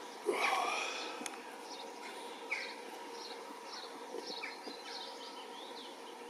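Birds singing, with short chirps repeating every second or so and one louder call about a quarter second in. A faint steady hum runs underneath as the Class 158 diesel multiple unit approaches.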